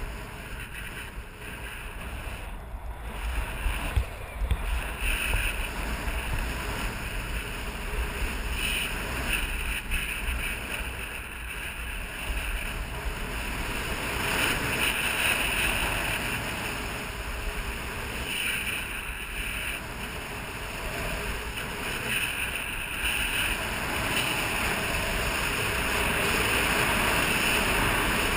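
Skis sliding over groomed snow with a steady rushing hiss, mixed with wind buffeting the microphone during a downhill run, growing louder toward the end.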